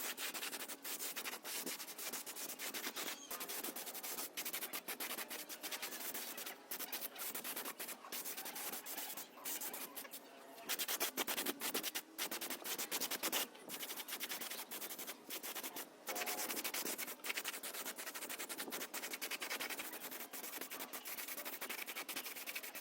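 Abrasive rubbing and sanding on the generator's rusty metal parts by hand, a steady scratchy scrubbing with many brief breaks.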